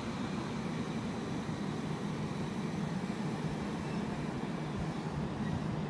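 JR East 701 series electric train easing along the platform to a stop, giving a steady low hum with faint high whining tones above it.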